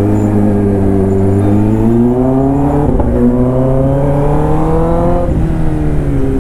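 Kawasaki ZX-10R inline-four engine pulling through an Arrow aftermarket exhaust in second gear. The engine note climbs for about five seconds under throttle, then falls as the throttle is closed.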